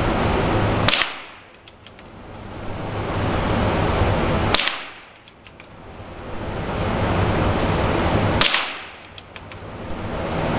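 Three gunshots about four seconds apart over a steady rush of wind noise. The wind noise drops away after each shot and slowly swells back.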